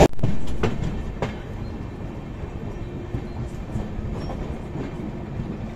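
Amrit Bharat Express coach running along the track, heard from its open door: a steady rumble of wheels on rails, with a few sharp clicks in the first second or so.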